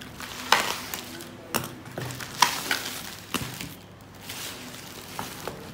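Plastic bubble wrap crinkling and rustling as it is handled and pulled off a boxed drawing tablet, with several sharp crackles; the loudest come about half a second and two and a half seconds in.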